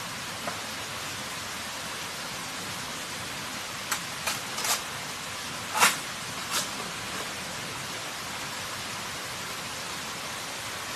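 Machete striking and splitting the top of an upright bamboo pole: a handful of short sharp knocks and cracks between about four and seven seconds in, the loudest near six seconds. Underneath runs the steady rush of stream water.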